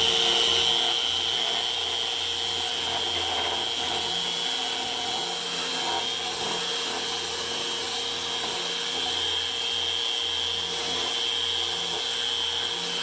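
Festool Rotex sander running steadily with a high whine, doing the finish sanding of a striped mahogany cutting board.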